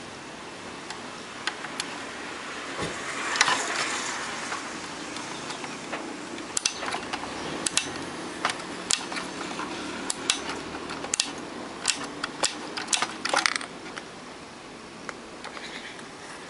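Small sharp plastic clicks from a radio's stiff slide selector switch and its small parts being worked by hand, irregular and clustered from about six to thirteen seconds in, with a brief rustle of handling near the start.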